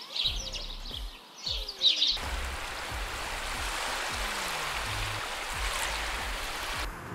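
Bird chirps in the first two seconds, then a sudden switch to a steady rushing noise of surf on a shore that lasts about five seconds and cuts off near the end.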